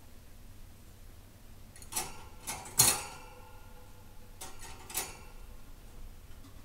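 A budgie knocking a cage mirror about against the cage: a handful of sharp clicks and knocks, the loudest about three seconds in with a brief ring.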